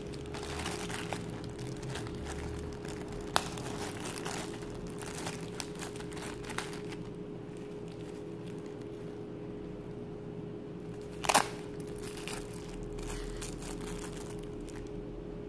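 Plastic packaging crinkling as it is handled: a zip-lock bag and clear plastic wrap. It rustles on and off, with a sharp click a little over three seconds in and a louder crackle about eleven seconds in, over a faint steady hum.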